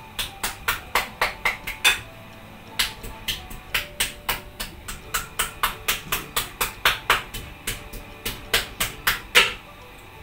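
A kitchen knife repeatedly striking a raw chicken breast on a stone countertop, beating the meat thin. Sharp, rapid strikes about four a second, with a brief pause about two seconds in.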